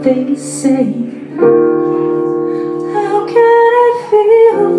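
Live piano and female vocal music: a woman sings a wavering, held melody over sustained piano chords, which change about a second and a half in and again near the end.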